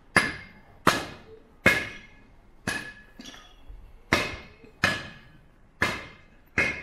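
Steady hammer blows on metal, about one strike every 0.8 seconds, each with a short metallic ring.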